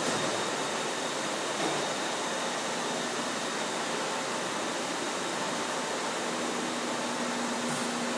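Steady hum and rush of factory machinery running on a shop floor lined with presses, with a low steady tone coming in about six seconds in.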